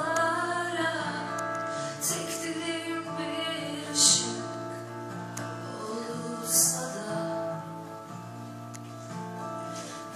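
Live concert performance: a woman singing a slow song over sustained instrumental accompaniment, recorded from the back of a theatre hall.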